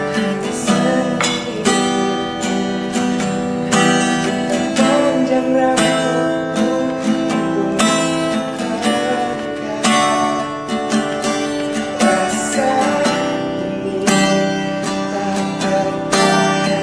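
Acoustic guitar strummed steadily, playing the chords of a song.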